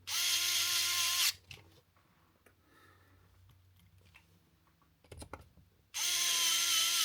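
Electric screwdriver running twice with a steady whine, about a second each time, driving the last two screws of an aluminium beadlock wheel ring; faint clicks of handling between the runs.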